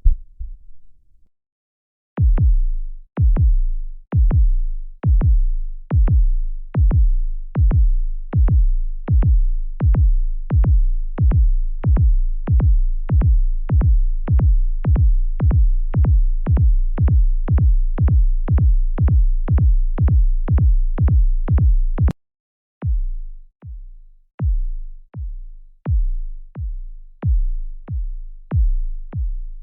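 Heartbeat sound effect: deep, low thumps. A run of beats starts about two seconds in and speeds up from about one to about two a second, like a racing heart. After a short silence, a second heartbeat track begins, with slower, uneven beats.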